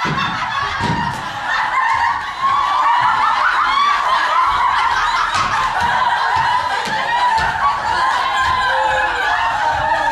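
A crowd of children's voices laughing and shouting over one another, many voices at once, starting suddenly just before and carrying on without a break.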